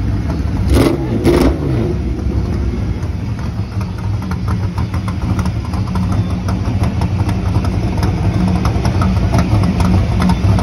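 Race car engines idling loud and close in a slow parade, with two quick revs about a second in, then a steady low rumble.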